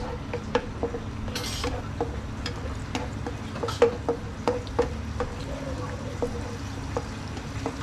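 Metal spatula scraping and clinking against a wok as a few cubes are stir-fried in a little oil, with short, irregular taps two or three times a second, each giving a brief ring from the pan.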